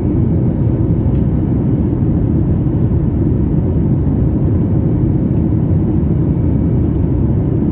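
Steady cabin rumble of a Boeing 737 MAX 8 in its climb after takeoff, heard from a window seat: its CFM LEAP-1B engines and the airflow over the fuselage. A faint steady whine runs above the rumble.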